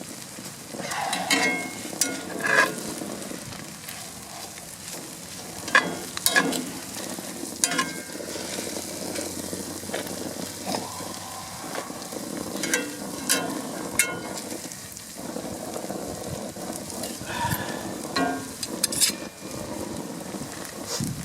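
Sausage and melting cheese sizzling steadily in a pan on the grill. A utensil clicks and scrapes against the pan now and then as the food is stirred.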